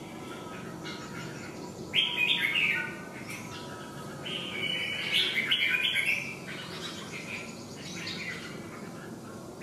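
Red-whiskered bulbul singing: bright, warbled chirping phrases in short bouts, loudest about two seconds in and again about five to six seconds in, with softer phrases after.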